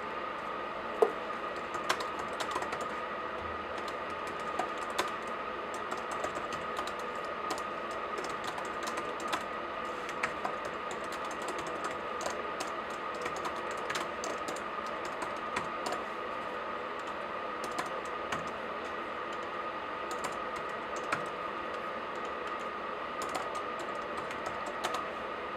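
Typing on a laptop keyboard, irregular key clicks over a steady background hiss, with one louder click about a second in.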